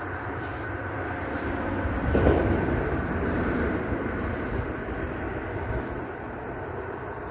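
Steady rumble of highway traffic on a nearby road bridge, swelling about two seconds in and then easing back.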